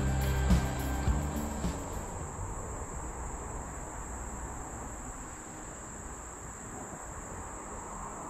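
Steady high-pitched drone of a summer insect chorus. Background music with low bass notes plays over it for the first two seconds and fades out.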